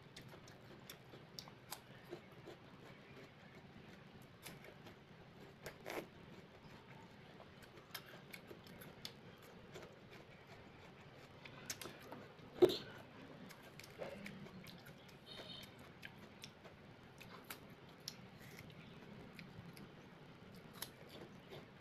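Faint, close chewing of crisp wax apple (roi): scattered soft crunches and mouth clicks, with one sharper, louder click about halfway through.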